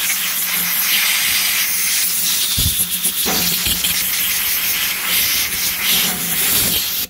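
Compressed air hissing steadily as it blows dust and dirty grease out of a green Bosch sander, with a faint low hum underneath and a couple of brief knocks midway.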